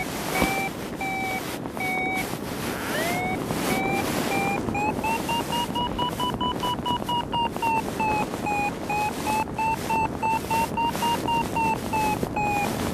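Paragliding variometer beeping its climb tone: quick repeated beeps that swoop up in pitch twice, then keep beeping, a little higher in pitch mid-way and slightly lower near the end, signalling that the glider is climbing in lift. Wind rushes on the microphone throughout.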